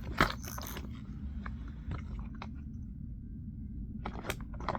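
Plastic tackle box and lures being handled: a sharp click just after the start, a few light taps, then a quick cluster of clicks near the end as the lid is worked, apparently jammed by a lure.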